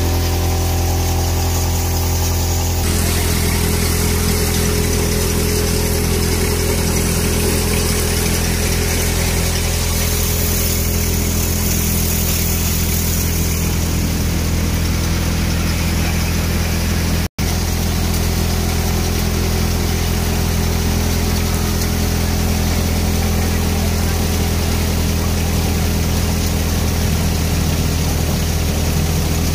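A tractor engine drives a three-fan multicrop thresher, running steadily with a low hum and an even rushing noise from the threshing drum and fans. The sound cuts out for an instant partway through.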